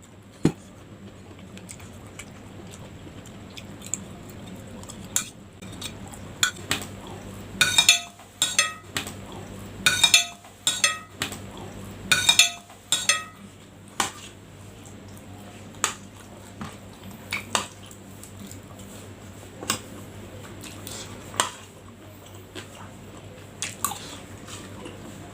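Metal spoon clinking and scraping against a plate while eating, with a busy run of ringing clinks for a few seconds about a third of the way in, then occasional single clicks.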